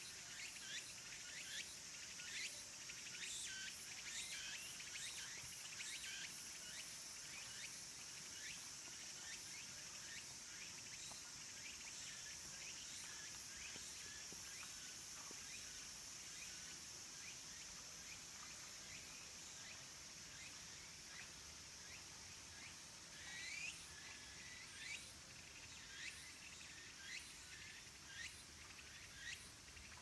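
Cicadas calling: a steady high buzz with rapid pulsing notes over it. The pulses grow louder and more spaced out about three quarters of the way through.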